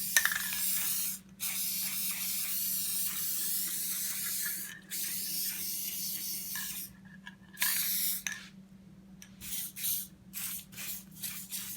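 Aerosol spray-paint can spraying in long hisses broken by brief gaps, then a run of short quick bursts in the second half as edges are touched up.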